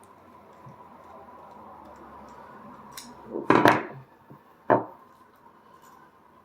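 Parts of a disassembled padlock, its steel shackle and body, being handled and set down on a hard surface: a small click, then a loud cluster of hard knocks and one more sharp knock about a second later.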